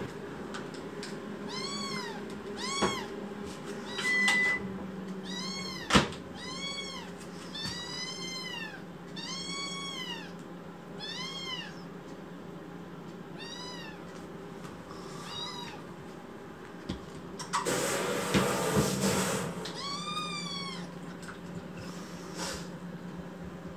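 Young kitten meowing over and over, short rising-and-falling calls about one a second, demanding as it waits for its food to be prepared. A steady low hum runs beneath, and partway through there is a burst of rustling noise lasting about two seconds.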